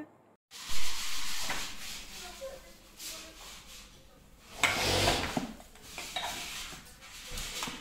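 Rubbing and light knocking handling noises from toddlers playing with plastic toys on a wooden floor, with a louder rustle about five seconds in.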